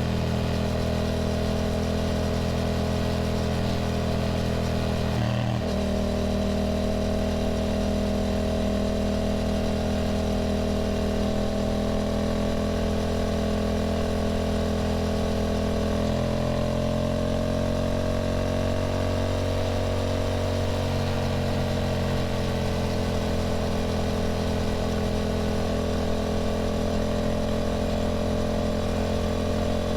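Yamaha motorcycle engine running at a steady cruise, heard from the rider's seat. The note dips briefly about five seconds in, then rises and falls gently in pitch a little past the middle.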